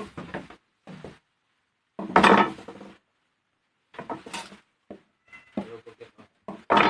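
Plates and bowls knocking and clinking on a wooden table as they are handled: a string of separate knocks, the loudest about two seconds in, with a quicker run of small clinks near the end.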